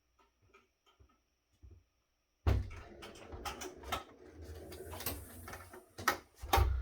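Clatter of hand tools and metal parts being handled on a workbench: a run of sharp clicks and knocks that starts abruptly about two and a half seconds in, with a heavier knock near the end. A few faint ticks come before it.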